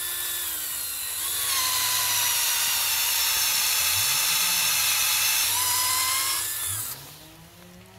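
Metabo cordless drill boring a tap hole into a birch trunk to draw off its sap: the motor whines steadily, easing off briefly about a second in, then winds down and stops about seven seconds in.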